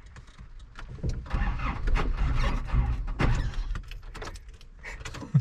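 Pickup truck's starter cranking the engine, which has just died, for a couple of seconds from about a second in, without it catching.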